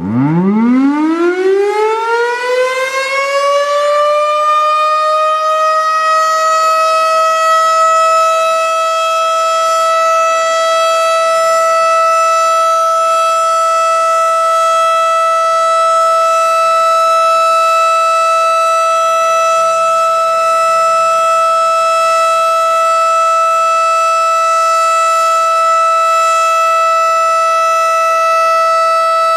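Federal Signal STH-10 outdoor warning siren sounding a test: it starts up with its pitch climbing from low to high over about five seconds, then holds one loud, steady high tone.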